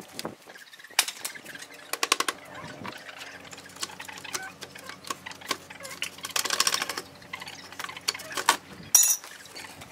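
Thin wooden formwork boards being knocked loose and slid out from under a cement-and-brick grill hood: irregular clicks and knocks of wood on brick and cement, with a longer scrape about six and a half seconds in and a sharp knock near the end.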